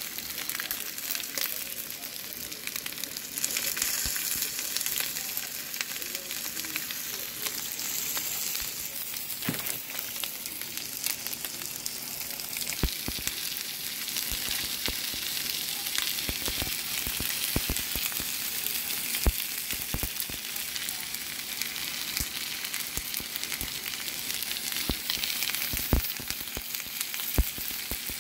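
Potstickers frying in oil in a pan with sliced onion and jalapeño, a steady sizzle with scattered pops throughout.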